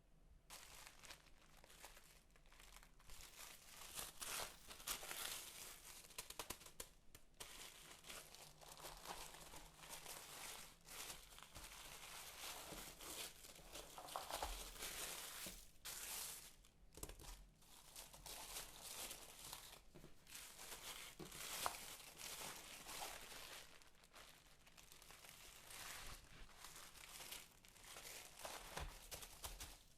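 Packaging being handled and unwrapped, with continuous crinkling and rustling and some tearing.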